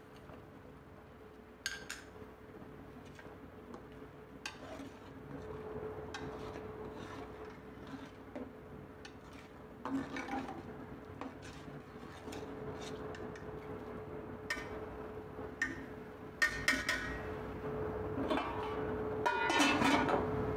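Spoon clinking and tapping against an aluminium cooking pot as dal is salted and stirred, scattered light knocks over a steady faint hum. Near the end an aluminium lid clatters as it is set onto the pot.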